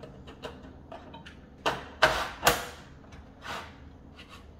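Electrical panel parts being handled: a series of separate light clicks and knocks, the two loudest close together about two seconds in.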